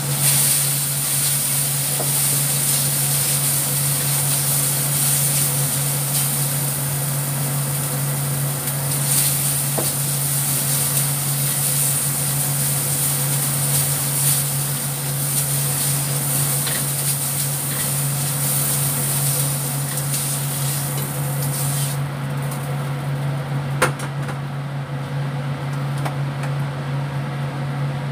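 Shrimp sizzling in a hot steel wok as it is stirred with a spatula, with a few knocks of the spatula on the wok. The sizzle dies away about three quarters of the way through. A steady low hum continues underneath.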